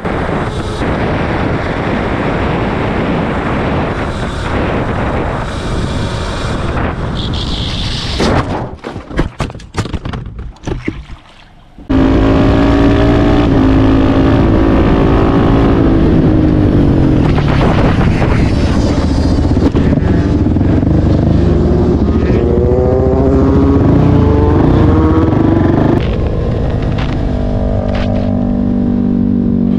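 Helmet-camera sound of motorcycles on the road. First a dirt bike on a wet street with rushing wind and tyre noise, broken by a burst of sharp knocks and clatter from about eight to eleven seconds in: the bike being hit by an SUV. Then a supermoto's engine running hard, its pitch rising and falling through the gears, and near the end a sportbike's engine holding a steady lower drone.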